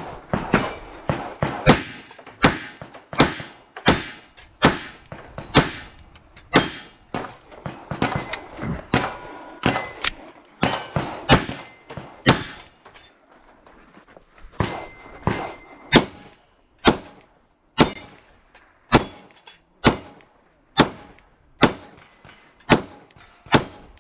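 A string of pistol shots, about one and a half a second at first and about one a second in the later half, with a short lull partway through. Several shots are followed by a brief metallic ring as steel targets are hit.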